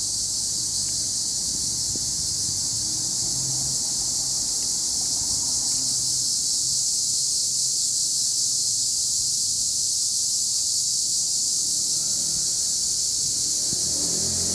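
Loud insect chorus from trees: a continuous high-pitched drone that holds steady without pulses or breaks, with a faint low rumble underneath.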